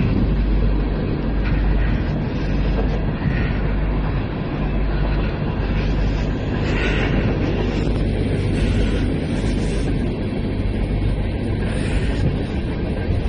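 Wind blowing across the microphone in a snowstorm, a steady loud rumble with an even low hum beneath it.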